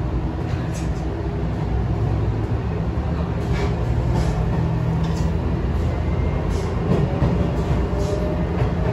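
Diesel railcar heard from on board as it pulls away: a steady low engine and running rumble that gets slightly louder, with a faint whine that rises in pitch in the second half as the train gathers speed. Scattered short clicks come from the wheels running over rail joints and points.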